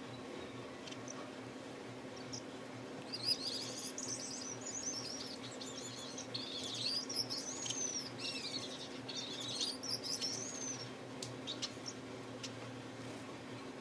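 A caged pet finch singing: a run of quick, high, rising and falling notes from about three to eleven seconds in, then a few single chirps, over a steady low hum.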